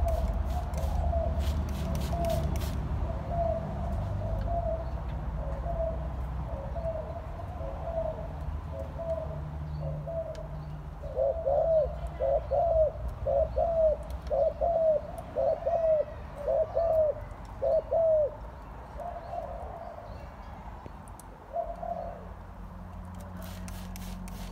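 Spotted dove cooing over and over, short low coos in a long series that grows loudest and quickest about halfway through, then thins out. A low rumble sits underneath, strongest in the first few seconds.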